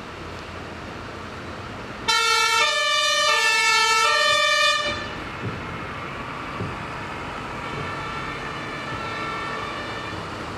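Fire engine's two-tone horn (German "tatütata") sounding about four alternating high and low notes, then cutting off suddenly. Truck engines run underneath.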